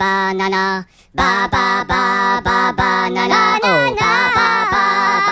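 A voice singing short repeated syllables on one steady note, with a brief break about a second in and a sliding drop in pitch near the end.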